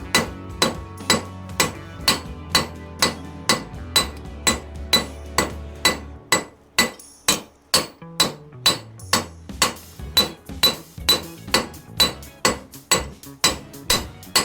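Hand hammer striking hot steel bar stock on an anvil in a steady rhythm of about two to three blows a second, each blow with a short metallic ring, as a blacksmith draws out the bar's tapered tail.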